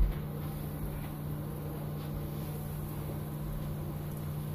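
Flour-coated chicken pieces sizzling in hot oil in a frying pan as they are dropped in one by one, a steady frying hiss with a few faint plops near the start. A steady low hum runs underneath.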